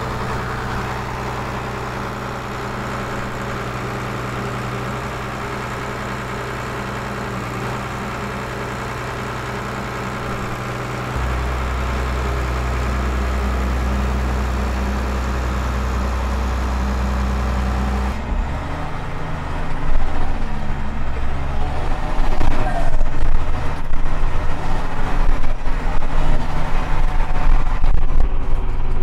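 New Holland TM190's six-cylinder turbo diesel running steadily while the transmission calibrates, its low note stepping up and getting louder about a third of the way through. Past the middle the engine sound turns louder and more uneven.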